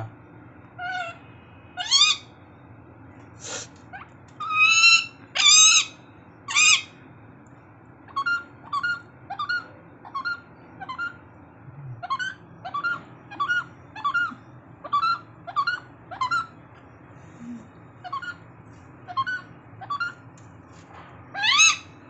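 Alexandrine parakeet calling in irritation: a few loud rising screeches, then a long run of short, softer squawks about two a second, then loud rising screeches again near the end.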